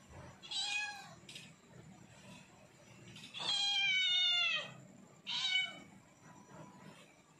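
Black-and-white domestic cat meowing three times: a short meow, then a long, louder one that drops in pitch at its end, then another short one. It is a hungry cat begging for food.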